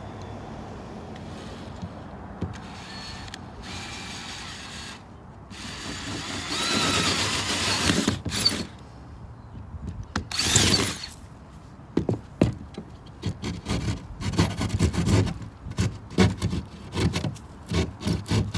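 Hand tools working on drywall: a few longer scraping, cutting strokes, then a run of short, sharp knocks and clicks in the second half as the marked circle is cut and knocked out.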